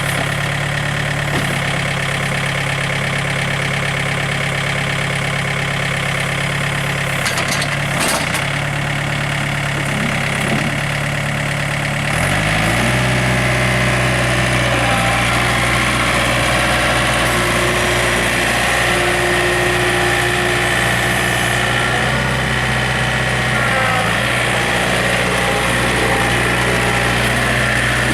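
John Deere 110 loader-backhoe tractor's diesel engine running steadily, with a few short knocks about seven or eight seconds in. About twelve seconds in its note changes and it gets a little louder, then runs steadily on.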